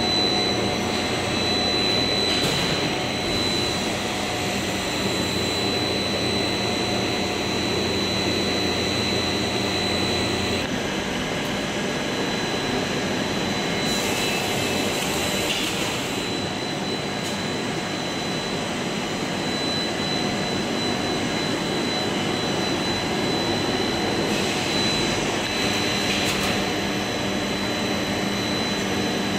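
Twin-screw plastic sheet extrusion line running: a steady machine hum and whine with a constant high-pitched tone. The hum changes about ten seconds in, and there are two brief spells of hiss, one near the middle and one near the end.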